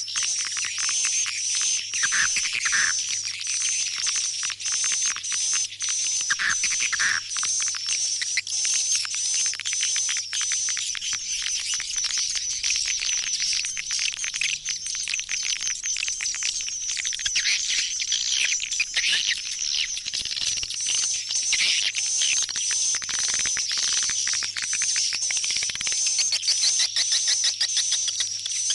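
Swiftlet calls: a dense, continuous chorus of high, rapid chirps and twitters. This is a recorded swiftlet lure sound, played to draw swiftlets back to a swiftlet house.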